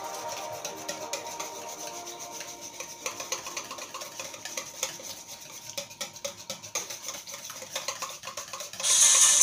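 A utensil stirring cake batter in a stainless steel mixing bowl, with rapid, irregular clicks and scrapes against the metal. Background music fades early on, and louder music comes in near the end.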